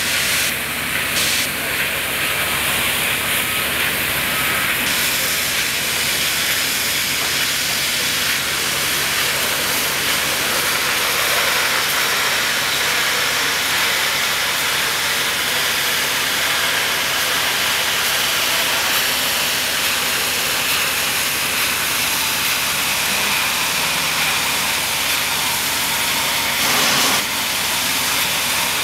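High-pressure water jets from an ATL-5000 automated bundle-cleaning lance, a system rated up to 20,000 psi, blasting the outside of a heat exchanger tube bundle. The spray gives a loud, steady hiss, with a brief surge near the end.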